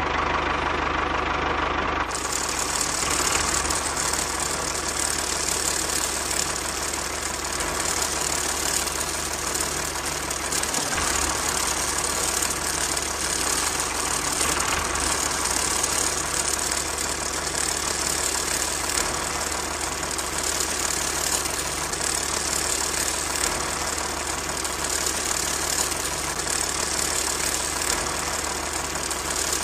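Small electric motor of a homemade toy tractor running steadily, driving a belt to a miniature flour mill that grinds wheat into flour, a continuous whirring rattle.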